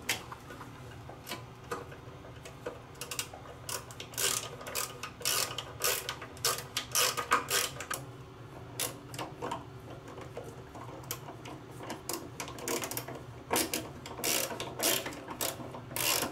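Hand screwdriver driving screws into the metal case of a shower mixer body: irregular short clicks and scrapes as the screws turn and the driver is reset. A steady low hum runs beneath.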